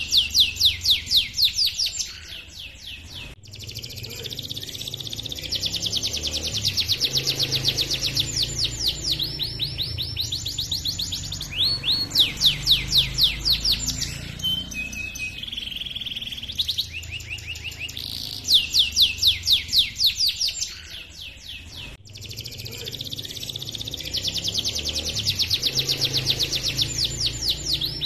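Domestic canary singing a long rolling song: fast trills of rapidly repeated chirping notes, phrase after phrase, each trill changing pitch and speed.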